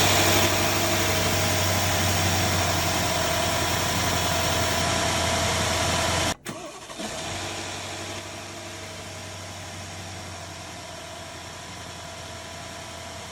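Freshly rebuilt Mercedes-Benz S500 V8 engine idling steadily just after its first start. About six seconds in the sound drops out for a moment, then the engine runs on, quieter.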